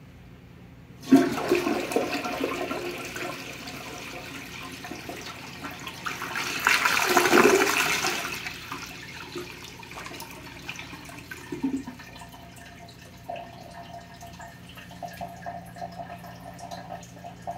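1996 Universal Rundle Atlas toilet flushing: the rush of water starts suddenly about a second in, swells to its loudest around seven seconds in as the bowl drains, then settles into quieter trickling and dripping as the bowl and tank refill.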